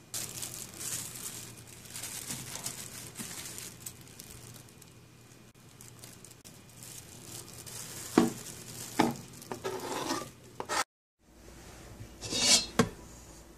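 Thin plastic bag crinkling and rustling as it is handled, with several sharp snips of kitchen scissors cutting up a habanero pepper inside the bag, the loudest snips past the middle and one more near the end.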